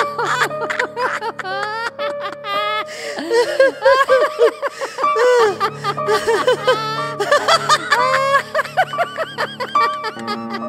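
High-pitched, rapid giggling and snickering laughter over music with sustained low notes; the low notes grow stronger about five seconds in.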